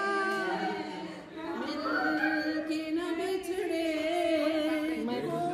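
Unaccompanied singing by a small group, women's voices to the fore, with long drawn-out notes.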